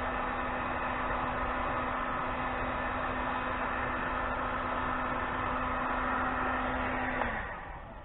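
Heat gun running steadily, its fan whining and blowing, while shrinking heat-shrink tubing over wire connections. About seven seconds in it is switched off and its motor winds down, the pitch falling.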